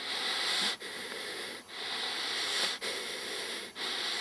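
A steady, breathy hiss broken by short gaps about once a second.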